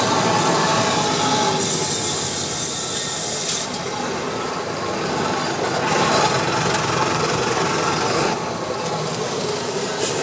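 Diesel truck with an MWM engine running with its long exhaust tip removed, giving an open, deep exhaust note. About two seconds in, a loud hiss lasts about two seconds, and a second stretch of hiss comes a few seconds later.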